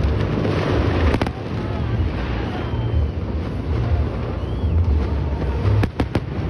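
Fireworks display: a continuous low rumble of shell bursts, with sharp cracks about a second in and a quick run of them near the end, and faint whistles in between.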